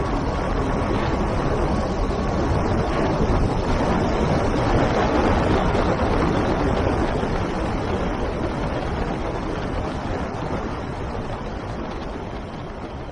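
Steady rushing wind noise, fading away over the last few seconds.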